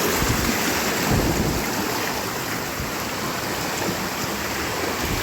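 Steady roar of falling water from a waterfall, an even rushing hiss.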